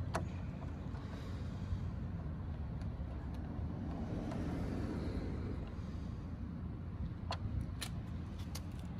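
A few light metallic clicks as Allen-head bolts and a hex key are worked by hand, most of them in the last two seconds, over a steady low rumble.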